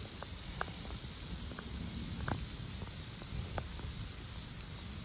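Timber rattlesnake rattling: a steady, even buzz, the defensive warning of a snake being handled with tongs. A few light ticks are heard over it.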